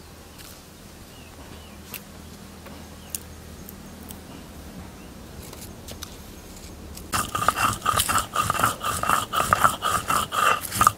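Stone roller grinding roasted dried red chillies on a stone slab (shil-nora): about seven seconds in, loud repeated rough scraping strokes begin in quick succession. Before that only a few light clicks are heard.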